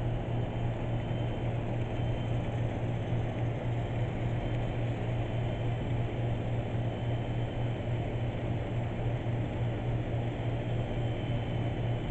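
N-scale model freight train running on the layout: a steady low electric hum with an even rolling whir, and a faint high whine from the locomotive motors that comes and goes.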